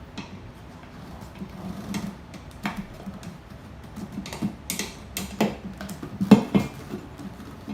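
Hand tools clinking and knocking on metal parts during a moped tyre change: an irregular series of sharp taps, the loudest about six and a half seconds in, over a faint steady low hum.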